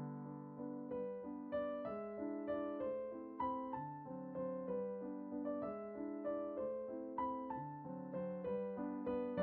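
Soft background piano music: a gentle melody of struck notes, each fading, at a slow steady pace.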